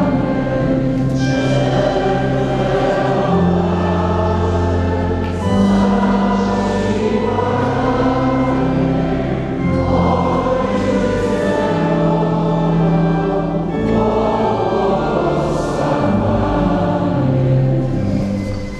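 A congregation singing a hymn together in a large church, over long held low notes that change every second or two.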